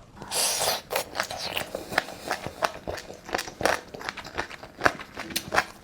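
Close-up chewing and gnawing on a black-bone chicken foot: an irregular run of sharp crunches and clicks from skin, cartilage and small bones, with a short burst of hissy noise about half a second in.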